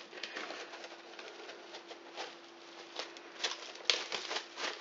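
Plastic cling film being pulled off its roll, crackling and rustling in a series of small irregular clicks, with a few sharper crackles near the end as the sheet comes free.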